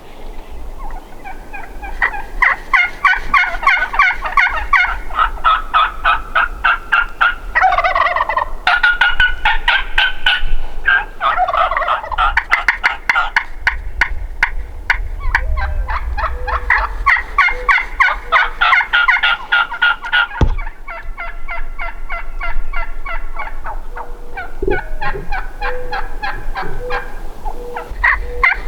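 Merriam's wild turkeys gobbling and calling in long runs of rapid notes, nearly without pause.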